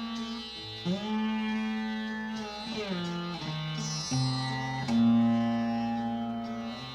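Rudra vina playing Rag Todi in the Hindustani dhrupad style: a few plucked notes, each held long and bent in slow slides between pitches.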